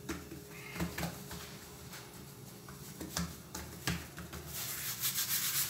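Hands pressing and patting pizza dough on a floured stone countertop: a few soft knocks and light thumps, then from about four and a half seconds in a steady brushing rub of palms sliding over the dough and flour.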